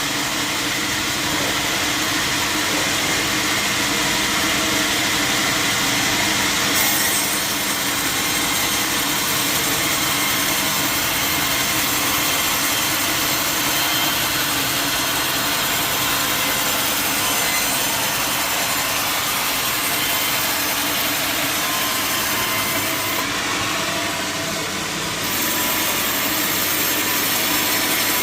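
Sawmill saw cutting lengthwise through a large log, a steady, continuous sawing noise that dips briefly near the end.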